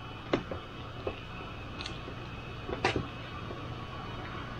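A few sharp clicks and taps of small parts and tools being handled at a soldering bench, the loudest nearly three seconds in, over a steady low hum.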